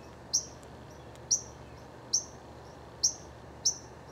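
A small bird repeating a short, high chirp that drops quickly in pitch, five times, a little under a second apart, over faint steady outdoor background noise.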